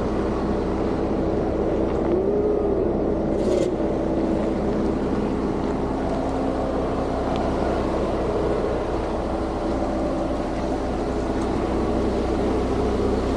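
4x4 vehicle driving along a dirt mountain trail: steady engine hum and tyre and road noise, with a brief squeak about two seconds in.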